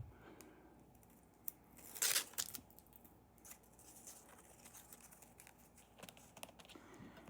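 Washi tape being torn off the roll by hand: one short rip about two seconds in, with soft rustling and light clicks as the tape is handled and pressed down.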